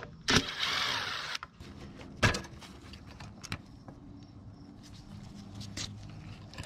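Cordless power driver whirring for about a second as it backs out a screw holding the air filter assembly and carburetor on a Briggs & Stratton mower engine, then several sharp clicks of screws and metal parts being handled.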